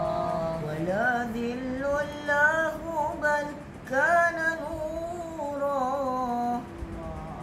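A boy singing Arabic devotional verse (nazam) alone, in a melismatic style: long held vowels that glide and waver in pitch, with a short breath about halfway through.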